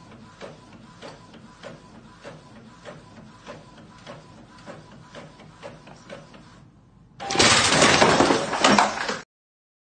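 Epson inkjet printer printing a page: soft regular clicks a little under twice a second over a faint steady whine as the paper feeds. About seven seconds in comes a loud, noisy crash-like burst lasting about two seconds, which then cuts off.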